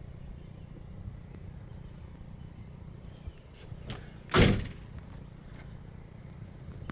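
A car door is shut with a single slam a little past halfway, with a faint click just before it, over a steady low rumble.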